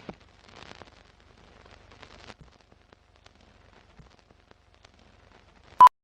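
Faint crackling and scattered light clicks, then one sharp, loud click with a brief high beep near the end.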